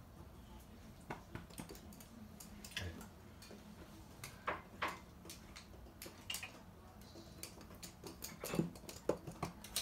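Toy poodles' claws clicking on a hard hallway floor as they walk: faint, irregular light ticks that come more often near the end.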